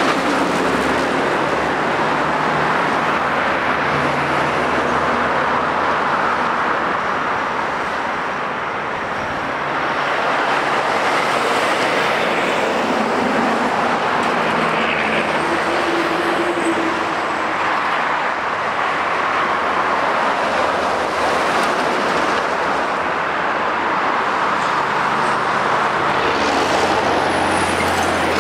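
Steady roadside traffic noise from trucks and cars passing at speed, mostly the rush of tyres with diesel engines beneath. A heavy truck passes close near the start, and a large trailer sweeps past close near the end.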